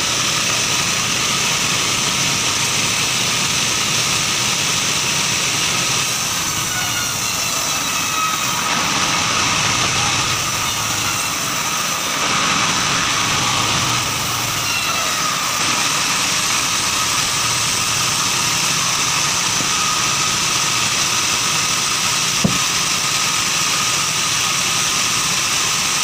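Sawmill bandsaw running steadily and sawing through a merbau log, a continuous loud mechanical noise with a high steady whine. One sharp knock is heard near the end.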